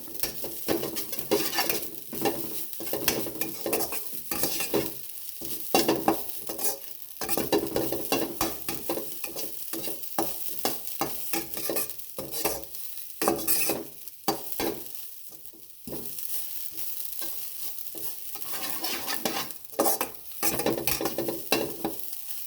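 Coarsely ground coconut sizzling in ghee in a kadai, stirred over and over with the utensil scraping against the pan, as it roasts toward golden brown. The stirring eases off briefly around the middle before starting again.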